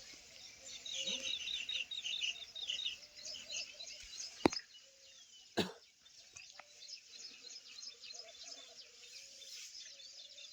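A dense chorus of high, rapidly repeated chirping calls, with two sharp clicks about a second apart a little before midway.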